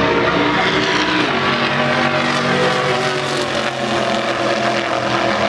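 Two hot rod drag cars launching and running down the strip at full throttle, engines loud and steady, with pitch rising as they accelerate.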